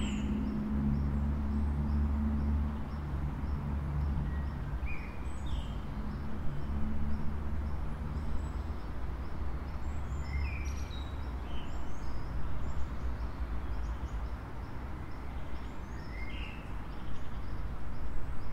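Outdoor ambience: short bird chirps now and then over a steady low rumble.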